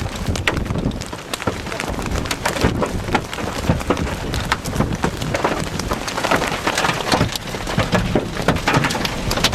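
Baseball-sized hailstones pounding a vehicle's body and glass in a dense, irregular clatter of hard impacts over a steady roar of wind and rain.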